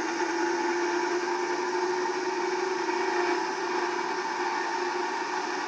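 Baldor 7.5-horsepower three-phase motor running at steady speed on a 400-watt Mitsubishi FR-S520SE variable-frequency drive, a drive far too small for the motor. It gives one steady whining tone over a hiss.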